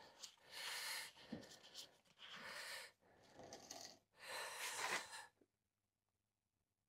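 Handling noise from working with a paint tin: about five short rustling bursts, then the sound cuts out about five seconds in.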